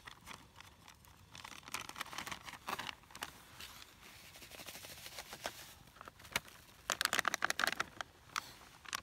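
Crinkling and rustling of handled packaging in short crackly bursts, one spell a couple of seconds in and a louder one about seven seconds in.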